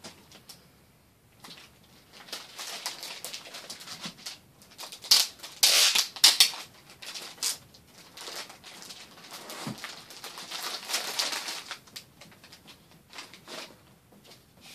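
Packing material crinkling and rustling as it is handled and pulled out of a cardboard shipping box, in uneven crackly bursts, loudest about five seconds in.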